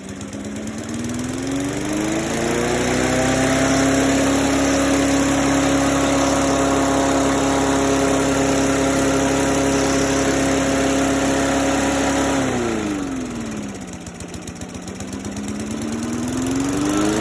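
Lawn mower engine revving up from a low, pulsing idle, held steady at high speed for about nine seconds, then dropping back to idle about twelve seconds in and revving up again near the end.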